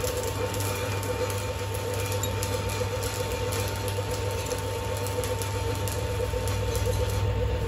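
Steady hum of workshop machinery running, with faint metallic clicks and scrapes as a chuck key tightens the jaws of a lathe's four-jaw chuck on a cast-iron hub.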